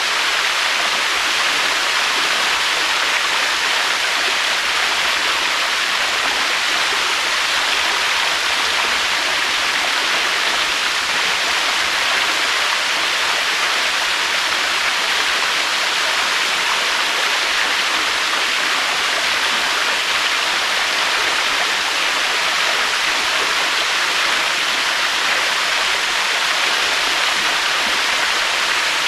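Waterfall: a steady, unbroken rush of falling water, a dense hiss with no swells or breaks.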